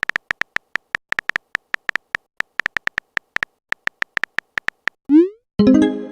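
Rapid, irregular smartphone keyboard typing clicks for about five seconds, then a quick rising swoosh of a text message being sent and a short pitched message tone near the end.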